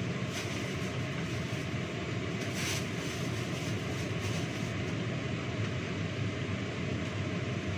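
Steady low rumbling hum of a kitchen range hood's exhaust fan, with a few light clicks and clatters of vegetables and dishes being handled at the sink.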